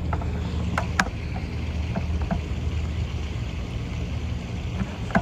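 A steady, low, engine-like mechanical hum that eases near the end, with a few sharp clicks about a second and two seconds in.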